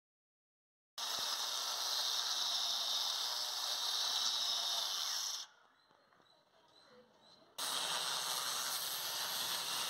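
Handheld angle grinder with a small core bit cutting into a stone slab, running hard for about four seconds, stopping briefly, then cutting again for the last two seconds.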